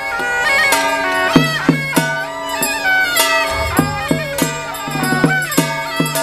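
Taiwanese temple ritual music: a shrill suona (double-reed horn) melody over a steady beat of struck percussion, about two to three strokes a second.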